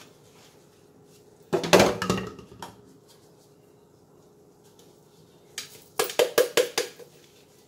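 Kitchen handling noise from seasoning containers and a glass baking dish. A clattering knock comes about a second and a half in, and near the end a quick run of about six sharp rattles, like a spice shaker being shaken.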